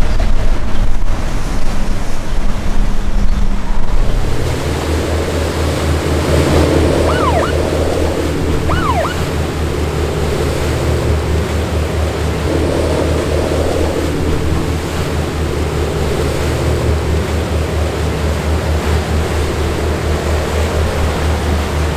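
Boat engines running as powerboats push through rough, churning water, with the rush of wakes and breaking waves over a steady low engine drone that sets in about four seconds in. Two short whistle-like chirps come around seven and nine seconds in.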